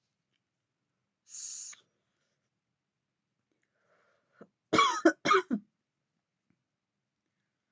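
A woman coughs three times in quick succession on vape vapour she has inhaled, a little after halfway. About a second and a half in there is a short soft breathy hiss.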